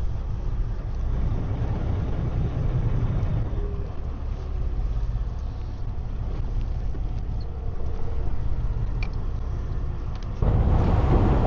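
Fishing boat's engine running steadily, a low rumble. About ten seconds in, it switches suddenly to louder wind and water noise.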